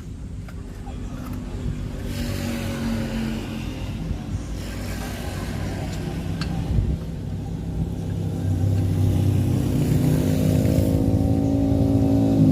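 A motor vehicle's engine running, growing louder and rising slightly in pitch in the second half, with a single click in the middle.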